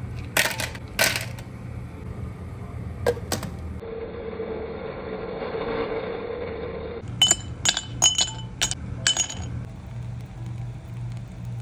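Ice cubes dropping and clinking against glass. There are a few sharp clinks near the start, a steady hum in the middle, then a quick run of ringing clinks about seven to nine seconds in.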